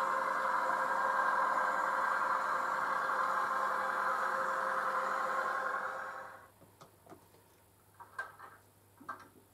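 The DCC sound decoder of a Heljan OO gauge North Eastern Railway electric autocar model plays its steady engine running sound with some rattle as the model runs. The sound fades out about six seconds in as the autocar comes to a stand, followed by a few faint clicks.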